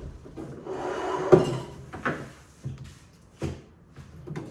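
A rustling scrape leading into a sharp knock about a second and a half in, then three lighter knocks: something being handled and bumped, like a door or drawer.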